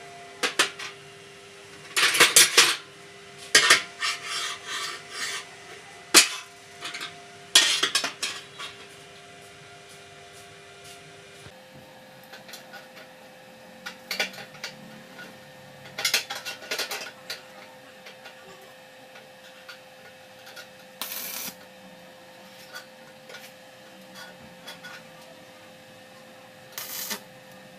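Metal rods and sheet-metal parts of a water tank clinking and scraping as they are handled and fitted, in irregular bursts that are densest in the first several seconds. A faint steady hum runs underneath.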